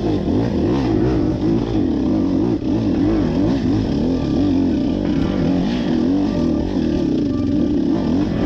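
A chainsaw's two-stroke engine running at high speed, its pitch wavering up and down again and again.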